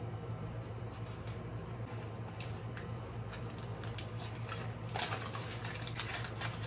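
Aluminium foil crinkling in short, irregular crackles as it is folded around a strand of bleached hair, with a denser burst of crackling about five seconds in. A steady low hum runs underneath.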